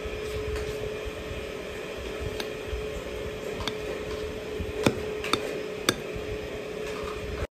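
A steel spoon scraping and clinking against a glass bowl while scooping ice cream, with several sharp clinks in the second half. A steady low hum runs underneath.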